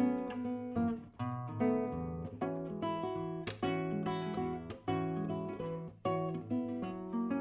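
Acoustic guitar playing an instrumental jazz passage, plucked and strummed chords and single notes with short breaks about a second and six seconds in.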